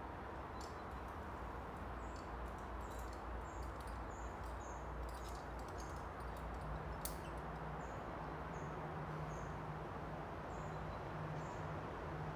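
Small bird repeating short, high chirps about twice a second in runs, over a steady outdoor background rush, with a few faint clicks.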